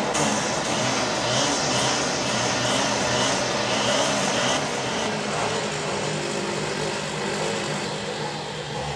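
Two-stroke string trimmer engine running steadily at cutting speed. For the first half there is a light swish that repeats about twice a second.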